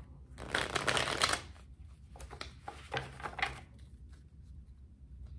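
A deck of tarot cards being shuffled by hand: a dense run of card noise lasting about a second, then a few shorter bursts, growing quieter toward the end.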